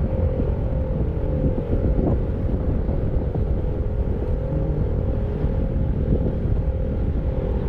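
Federal Signal Model 5 eight-port outdoor warning siren sounding a steady full-alert tone, swelling and fading as the rotating horn sweeps round, under heavy wind noise on the microphone.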